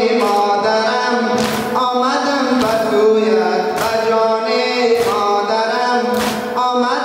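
A male voice chanting a Muharram noha (lament), with a sharp swishing strike about every 1.2 seconds from mourners beating themselves with chains (zanjeer zani).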